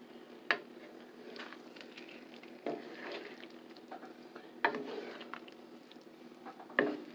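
Wooden spatula stirring chicken and broccoli through a thick cream sauce in a nonstick skillet, the sauce simmering on low. The spatula knocks sharply against the pan four times, about every two seconds.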